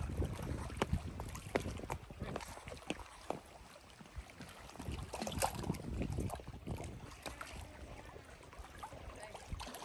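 Small waves lapping and splashing gently against the shore rocks in shallow water, with many small irregular splashes, while light wind rumbles on the microphone.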